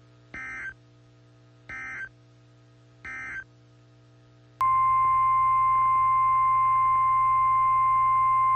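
NOAA Weather Radio emergency alert signals: three short bursts of SAME digital data tones mark the end of the tornado warning message. About four and a half seconds in, the steady 1050 Hz warning alarm tone starts abruptly and holds.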